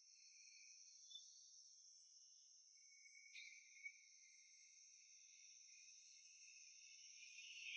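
Near silence: only a faint, steady high-pitched hiss.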